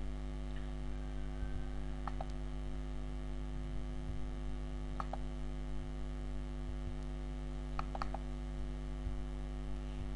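Steady electrical mains hum with a few faint, short clicks now and then.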